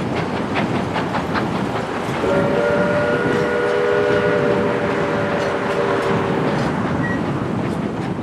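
Narrow-gauge passenger cars rolling past, the wheels clicking over rail joints over a steady rumble. About two seconds in, the locomotive at the head of the train sounds one long chord on its chime steam whistle, lasting about four seconds.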